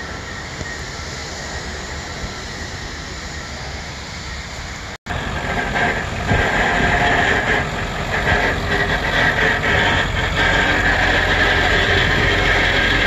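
Steady outdoor rumble and hiss. After a break about five seconds in it turns louder, with a steady high whine over the rumble.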